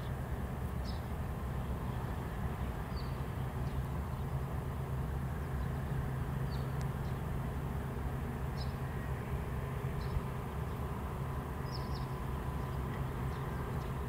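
Steady low rumble in the background, with short, high chirps of small birds every second or two.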